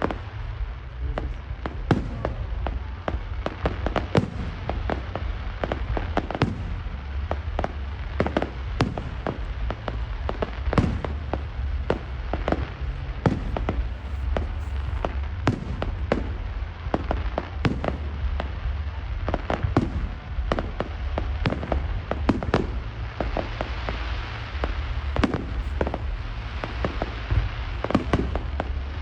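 Fireworks display: a steady run of bangs from shells bursting overhead, several a second and uneven in strength, with stretches of dense crackling from crackle effects.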